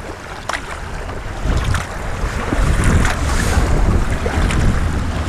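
Wind buffeting the microphone: a gusty low rumble that grows stronger about a second and a half in, with a few faint clicks.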